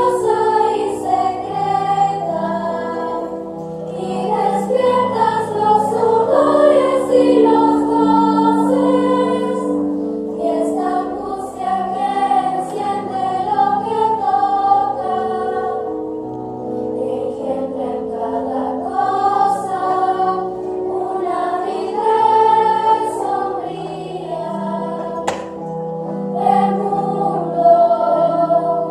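Children's choir singing a song, with held low notes of an instrumental accompaniment beneath the voices.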